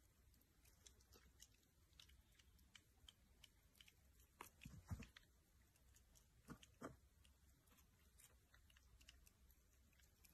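Faint crunching and clicking of a small puppy nibbling and chewing a thin treat stick held out by hand, with a few louder bites about halfway through.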